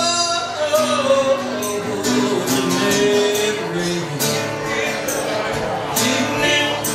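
A woman singing a gospel spiritual live into a microphone, her voice sliding and holding notes, over a strummed acoustic guitar and a steady beat of sharp percussive hits.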